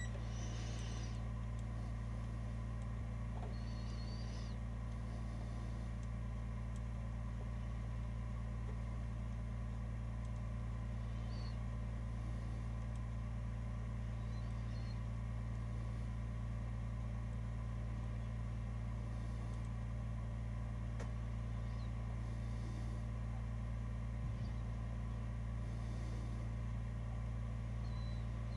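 Steady low electrical hum from a Märklin 3034 E41 model locomotive's motor under DC power as the voltage is slowly raised, the locomotive not yet moving off and its gearing unoiled. Faint brief high squeaks come now and then.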